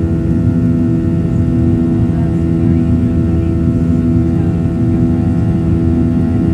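Inside the cabin of a Boeing 737-900 climbing out after takeoff: the steady drone of its CFM56-7B turbofan engines and rushing air at climb power, with several steady humming tones riding on it.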